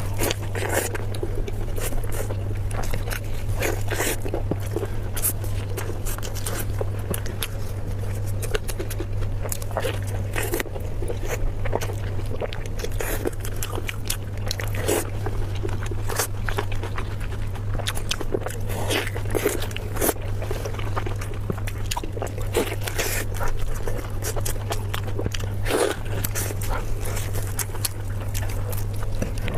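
Close-miked eating sounds: a person biting and chewing food, with irregular wet clicks and crunches, over a steady low hum.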